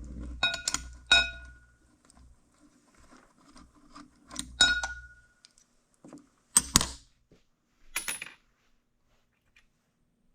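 Steel hand tools and small metal parts clinking against metal gearbox parts: irregular pairs of sharp clinks, some ringing briefly, with dull handling thuds under the first ones.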